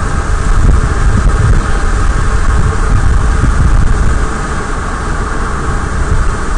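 Steady road and engine noise inside a moving vehicle's cabin: a loud low rumble with hiss, easing off a little about four seconds in.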